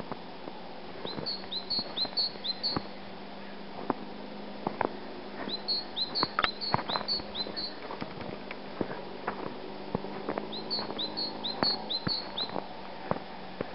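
A small songbird calling in runs of four or five short, high, rising notes, three times over. Irregular footsteps crunch in the snow between and under the calls.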